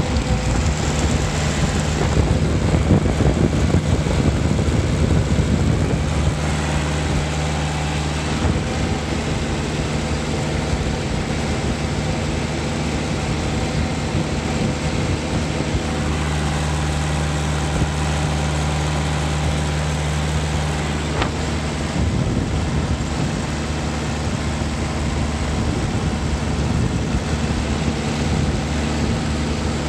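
John Deere tractor engine running at a steady speed while the tractor drives along a gravel road, under a constant rush of wind and road noise.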